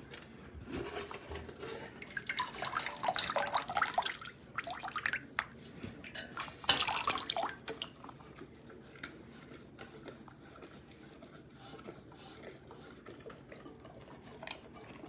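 Water splashing and dripping at a stainless steel dog water fountain, in two bursts of irregular splashes: one from about a second in to four or five seconds, and a shorter, louder one near seven seconds. Faint trickling continues after the splashes.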